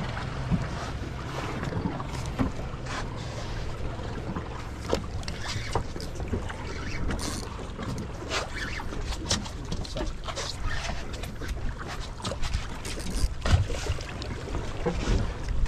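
Small boat on open water: water splashing and slapping against the hull in irregular strokes over a steady low rumble, with wind on the microphone.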